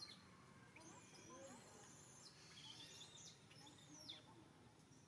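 Baby monkey's faint, high-pitched squeaks and squeals, about five in a row, each sliding down in pitch.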